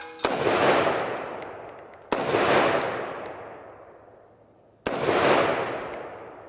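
12-gauge shotgun loaded with bird shot firing three shots, roughly two and a half seconds apart, each with a long fading echo.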